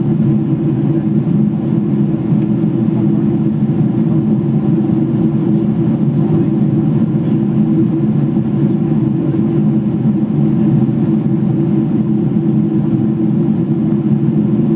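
Steady cabin noise of a Boeing 777-300ER climbing after takeoff: its GE90-115B engines and the rushing air come through the fuselage as a dense, even low drone.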